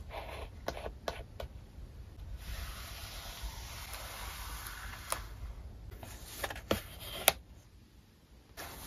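Light taps of tweezers on paper, then hands rubbing flat across the journal's paper pages for a few seconds to press down the stickers, followed by a few sharp clicks.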